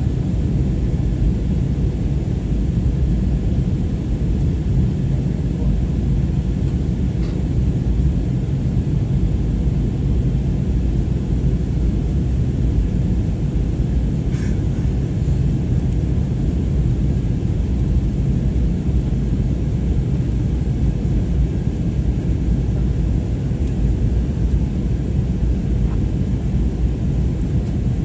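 Steady low rumble of an airliner in flight, engine and airflow noise heard inside the passenger cabin during the descent to land.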